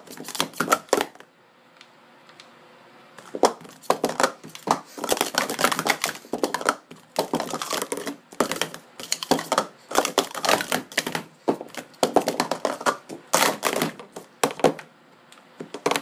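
Plastic sport-stacking cups clacking rapidly against each other and the mat as they are stacked up into pyramids and swept back down. A flurry of clacks comes first, then a pause of about two seconds, then almost continuous clacking to the end.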